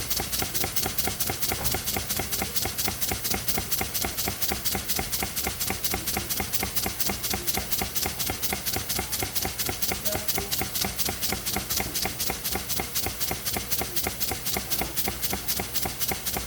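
Homemade steam engine running: an even, rhythmic knocking and puffing at about four to five strokes a second, ticking over slowly on very low steam pressure.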